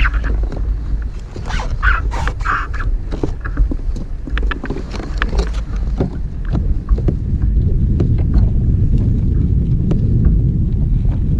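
Wind buffeting the microphone in a heavy, steady low rumble that grows stronger over the second half. Over it come scattered clicks and rattles in the first few seconds as a crappie and the tackle are handled in the kayak.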